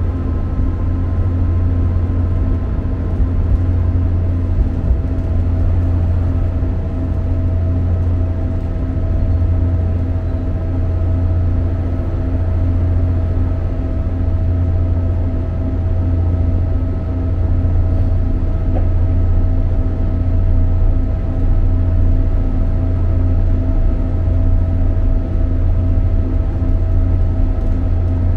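Steady interior running noise of a diesel multiple unit under way: a deep, even rumble with a faint steady whine over it.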